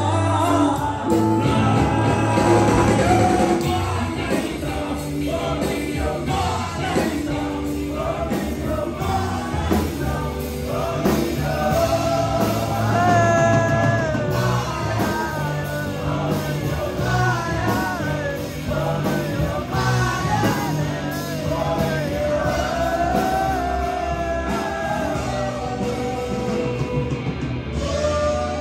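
Live rock band playing, a male singer's vocals over electric guitars and a drum kit.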